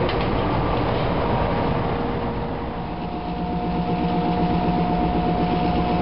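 Workshop machinery running with a steady rumble and hum. About three seconds in, a second, higher steady motor hum starts, fitting the electric motor of a buffing wheel used to polish cast metal medallions.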